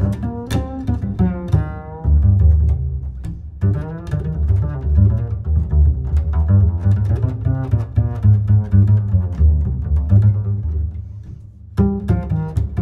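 Background music led by low strings, with a strong bass line of quick, short plucked and bowed notes; it drops away briefly near the end, then comes back in.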